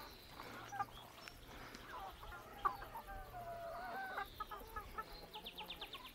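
Chickens clucking and calling softly, short scattered calls with one longer wavering call near the middle. A single sharp click comes about two and a half seconds in, and a quick run of high chirps near the end.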